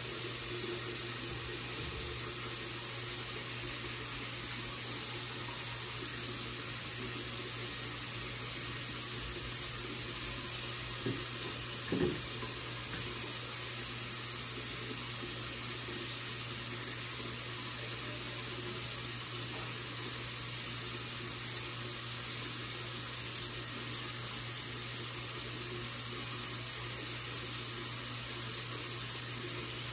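Bathroom sink tap running steadily, with two brief soft knocks about eleven and twelve seconds in.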